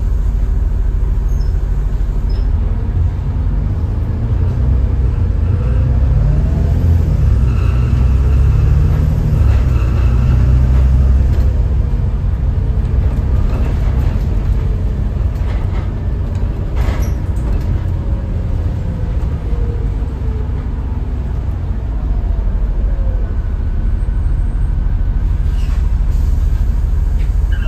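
Volvo B7TL double-decker bus heard from inside the lower deck while under way: the six-cylinder diesel and running gear give a low, steady drone. It rises in pitch and grows louder as the bus pulls away about a quarter of the way in, eases off past the middle, and picks up again near the end. A single sharp knock or rattle from the body comes about two-thirds of the way through.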